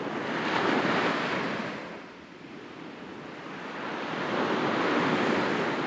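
Sea waves breaking and washing on the shore, two swells of surf a few seconds apart.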